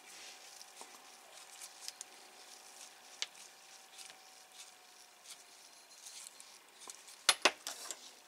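Faint ticking and scraping of a small precision screwdriver turning tiny screws into a plastic model panel, tightened gently by hand, with a few sharper clicks near the end.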